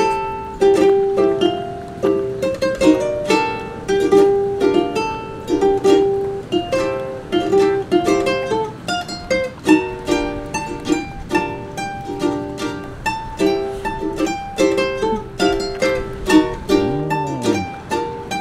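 Background music: a ukulele playing a quick plucked tune.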